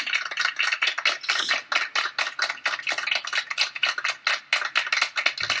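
Rapid, uneven clicking and rattling, about ten clicks a second.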